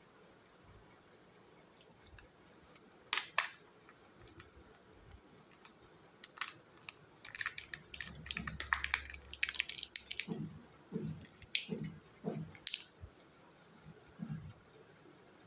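Hands handling a Kinder Joy toy capsule and its small wrapped parts: two sharp plastic clicks about three seconds in, then a few seconds of crinkling wrapper, then several duller taps and knocks.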